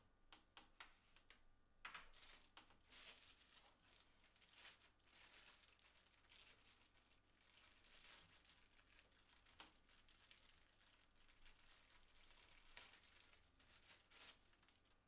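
Faint crinkling and rustling of a thin clear plastic bag as it is handled and a lens pouch is pulled out of it, with a few light clicks in the first couple of seconds.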